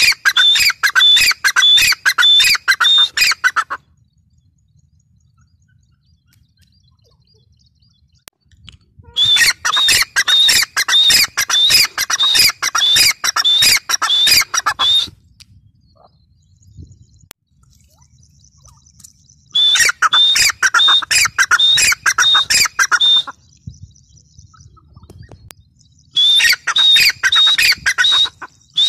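Gray francolin calling: loud, rapidly repeated sharp notes in four bouts of several seconds each, with quiet pauses between.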